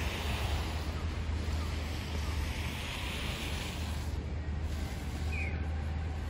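Wind buffeting the microphone over steady city street noise: a constant low rumble with an even hiss.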